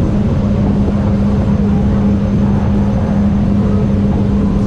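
A 2022 Sea-Doo RXP-X's supercharged Rotax 1630 three-cylinder engine running flat out at about 58 mph with a steady, unchanging pitch, over a heavy rush of wind and water.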